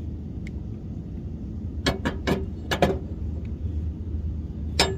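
Several sharp metal clinks, about five spread through the few seconds, as a new Troy-Bilt Bronco riding-mower blade and its mounting hardware are handled and fitted onto the spindle. A low steady rumble runs underneath.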